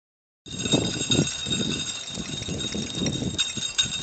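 Dog cart rolling over asphalt behind two trotting Bouviers des Flandres: an uneven rumble and knocking of the wheels and frame, about two or three knocks a second, with metal clicking and jingling of the cart and harness hardware.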